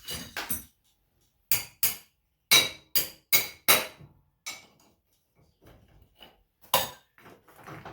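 Hammer blows on metal while working the old wheel off a Snapper 360z zero-turn mower: a run of sharp, ringing strikes, about two or three a second, then a pause and one last hard strike near the end.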